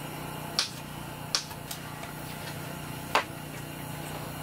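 Knife chopping baby dill pickles on a cutting board: four sharp taps of the blade, spaced irregularly, the last the loudest, over a steady low hum.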